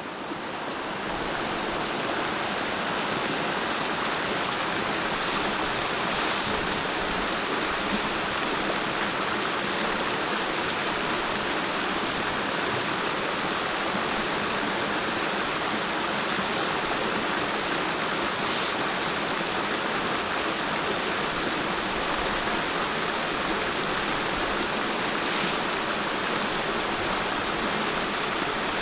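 Running water rushing steadily: a jet of water pouring from a pipe set into a tree trunk and splashing onto the ground.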